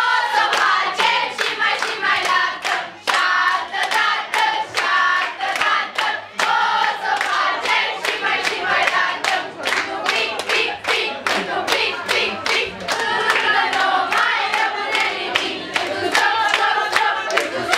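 A group of teenage girls singing together while clapping their hands in a steady rhythm.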